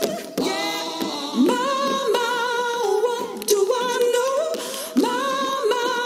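A high voice singing long, wordless held notes with vibrato in a recorded song, with a few sharp clicks from tap shoes on the stage floor.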